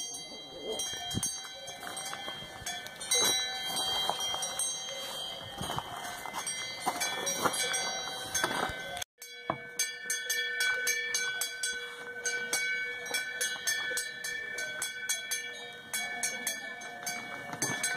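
Several cowbells on cows walking along a pasture track, clanking and ringing irregularly, with many overlapping bell tones and a momentary gap about halfway through.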